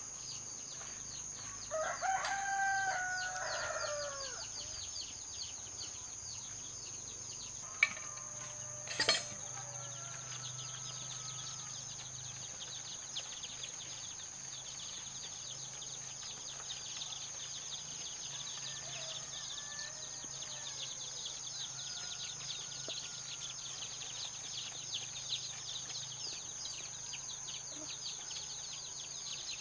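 A rooster crows once about two seconds in, over a constant high insect drone. Two sharp knocks come near the middle, followed by a few faint bird calls.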